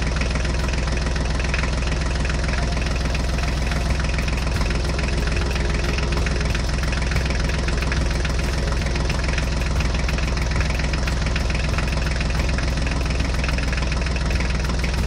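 Diesel tractor engine idling steadily with a rapid, even knock, dubbed over the toy footage as a sound effect.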